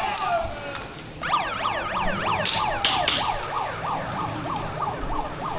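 Electronic siren yelping, a fast repeating rising sweep about three times a second, starting about a second in. A few sharp clicks sound around the middle.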